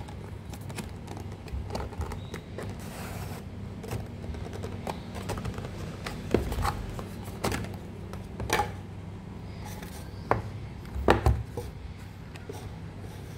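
Cardboard packaging of an earbuds box being handled and opened: scattered taps, clicks and scrapes, with a few louder knocks, over a steady low hum.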